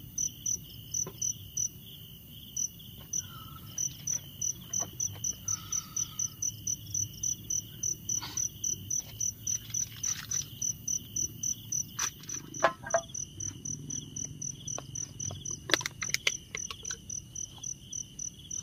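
Night insects chirping in a steady rhythm, about three to four chirps a second, over a continuous high trill. A few knocks and clicks sound about two-thirds of the way through.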